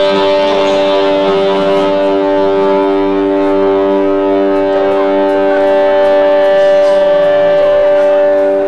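Electric guitar holding one chord that rings on steadily for over eight seconds, the notes unchanging, then stops near the end.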